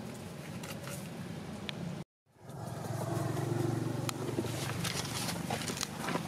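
A motor vehicle's engine running steadily in the background. The sound cuts out completely for a moment about two seconds in, then the engine hum comes back louder.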